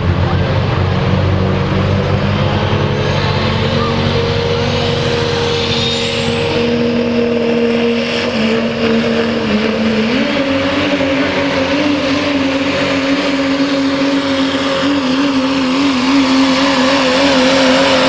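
Modified diesel pickup running flat out under heavy load as it drags a pulling sled, its engine note holding steady and then stepping up in pitch about ten seconds in. A faint high whistle rises over several seconds partway through.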